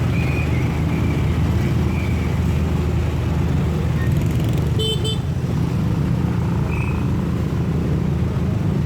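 Steady street traffic rumbling, with a few short horn toots, the clearest about five seconds in.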